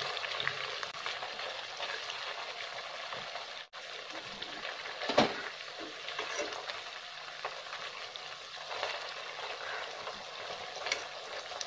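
Chicken pieces sizzling as they fry in oil in a nonstick pot while they are turned over with silicone tongs. A few knocks of the tongs against the pan sound over the sizzle, the loudest about five seconds in.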